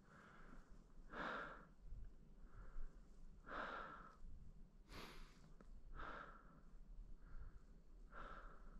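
A person breathing hard and rhythmically while walking, with soft in-and-out breaths about one every second or so.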